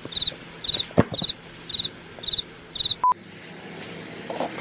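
Cricket chirping: short trills repeated about twice a second, stopping abruptly about three seconds in, followed by a brief electronic beep.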